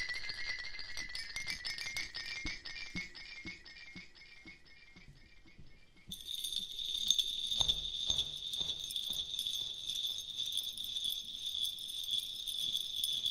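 Background music of light, tinkling bell-like notes in a quick repeated pattern, fading away partway through. About six seconds in, a new section starts suddenly with a high, steady shimmer like jingle bells.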